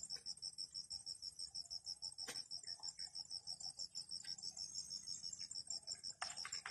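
An insect chirping steadily in a fast, even pulse of high-pitched chirps, about six a second. There is one faint click about two seconds in.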